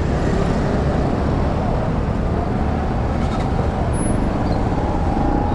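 Motorcycle pulling away and riding through busy city traffic: a steady rush of engine, road and traffic noise.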